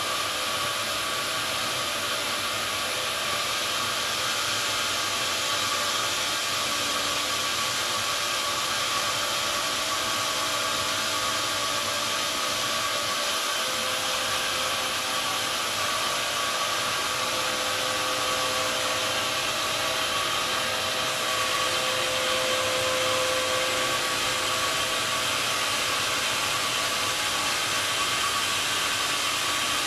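Sawmill machinery running steadily: a log band saw mill with its dust-extraction blower, giving an even, airy hum with hiss and a few held tones. The sound stays level throughout.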